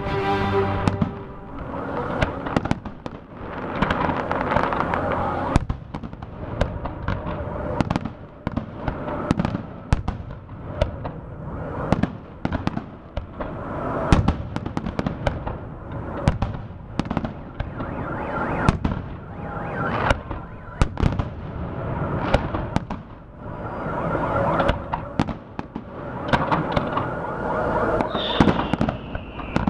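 Fireworks salute: shells bursting in a continuous stream of sharp bangs, several a second at times, over a dense rumbling haze. A descending whistle sounds near the end.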